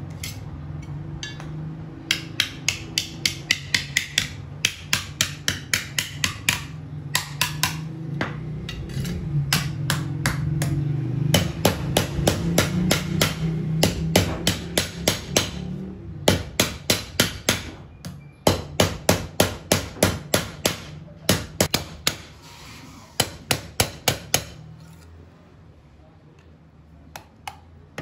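Hammer blows on thin sheet-metal ice-cream mould cones held on a tapered metal mandrel, ringing sharply in quick runs of about three strikes a second with short pauses between runs. A steady low hum runs underneath for the first two-thirds.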